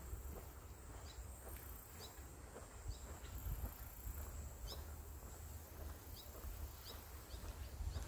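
Wind through a field of tall silver grass, a soft rustle with a low rumble of wind on the microphone. Over it, a bird gives short high chirps, about a dozen, coming faster in the second half.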